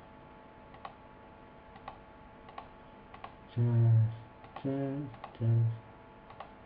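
Single computer mouse clicks, roughly one a second, as files are picked out one by one. A man's voice makes three short wordless murmurs partway through, and these are the loudest sounds.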